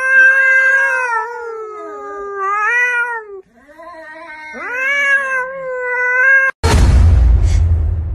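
A cat giving two long, wavering yowls, the second rising at its start. About six and a half seconds in, this cuts off into a sudden loud whoosh.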